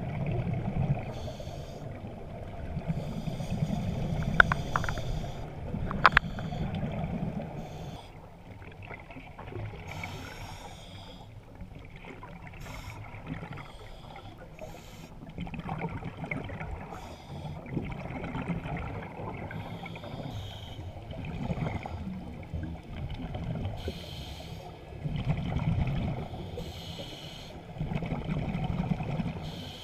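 Muffled underwater sound of scuba breathing through a regulator, with exhaled bubbles rushing out in swells every few seconds. Two sharp clicks come about four and six seconds in.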